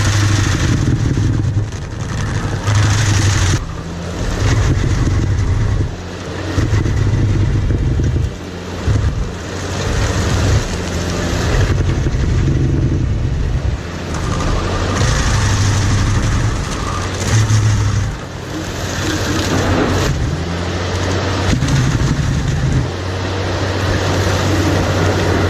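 A Bobcat T650 compact track loader running under load, driving a Stumpster 280 stump grinder attachment as it grinds through stump and roots. The engine note rises and falls every few seconds as the grinder bites in and eases off.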